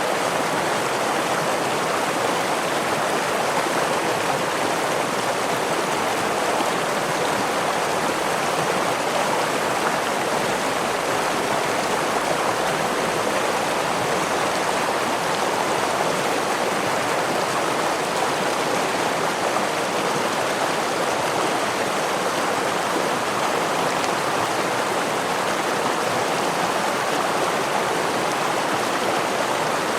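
Forest stream rushing over a small waterfall: a steady, even flow of water with no breaks.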